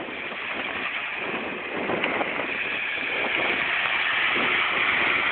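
Small off-road 4x4 engine running as the vehicle drives across muddy ground toward the camera, growing steadily louder as it approaches. The sound is a coarse, hissy noise with no clear engine note.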